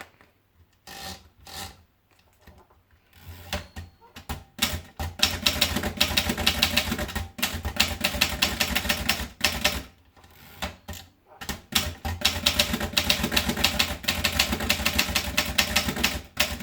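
Rheinmetall typewriter being typed on: a few scattered keystrokes at first, then fast runs of key strikes from about five seconds in. A short pause comes near the ten-second mark before a second fast run.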